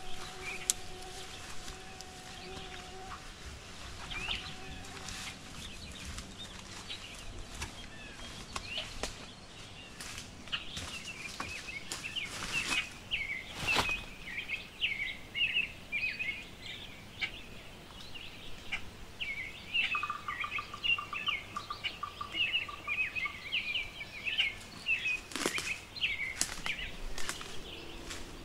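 Footsteps on the forest floor with small birds chirping rapidly and continuously, the chirping thickening about a third of the way in, plus scattered sharp snaps.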